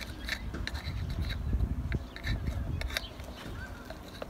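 Handling noise from a car door lock actuator's plastic housing: light rubbing and scattered small clicks as its two halves are fitted together, over a low rumble.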